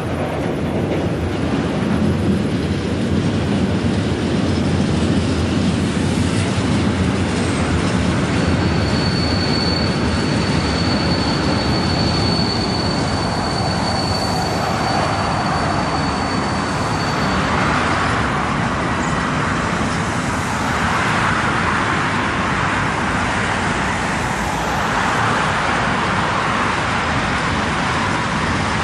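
Long freight train rolling past over a railway bridge: a steady rumble and clatter of wagons. A thin, high wheel squeal starts about a third of the way in and holds for several seconds.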